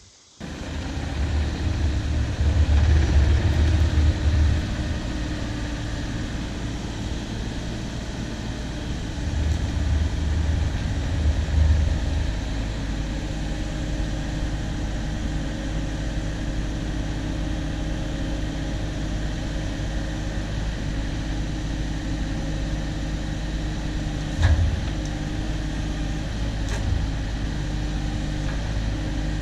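Wood-Mizer LT15 band sawmill's engine running steadily, louder in two stretches near the start and about ten seconds in, with a single knock late on.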